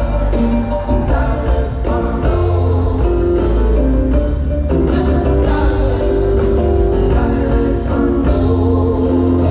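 Live gospel-rock song: a choir sings held notes over electric guitar, bass and drums at a steady beat.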